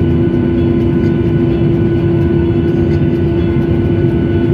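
Aircraft engines running with a steady, loud drone: a deep rumble under a constant held hum.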